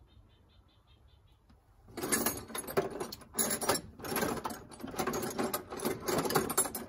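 Metal hand tools clattering and jangling irregularly, starting about two seconds in. Before that it is near quiet, with a faint regular ticking.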